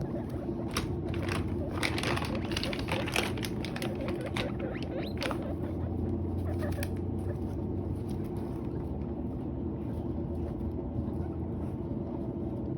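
Guinea pigs munching and rustling through hay, with a run of crisp crackles in the first half that thins out after about five seconds. A steady low hum runs underneath.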